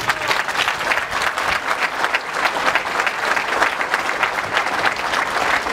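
A large crowd applauding, a dense and even clapping.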